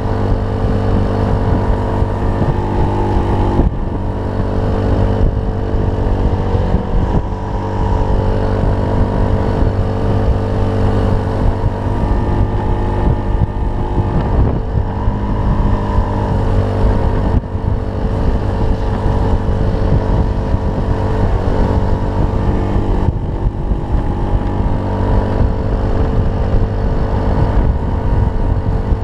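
Honda Zoomer-X scooter's small single-cylinder engine running steadily under way, its note shifting a little in pitch now and then.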